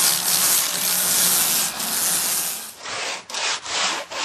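Sanding on a cork and wood decoy during shaping. A steady stretch of rubbing gives way, about three seconds in, to short back-and-forth strokes at about three a second.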